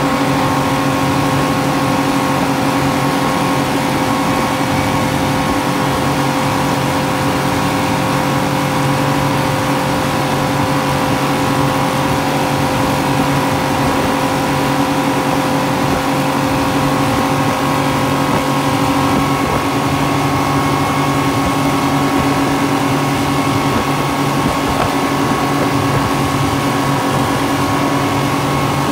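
Speedboat outboard motor running at a steady high cruising speed, a constant engine drone with the rush of the churning wake under it. The pitch holds steady throughout.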